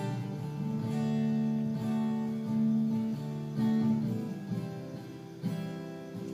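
Acoustic guitar strumming chords that ring on and change every second or so, with a sharp fresh strum about five seconds in.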